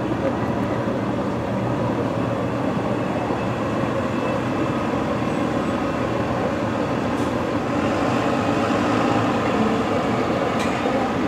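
Outdoor warning sirens sounding a steady, unbroken tone, blurred with echo and city noise.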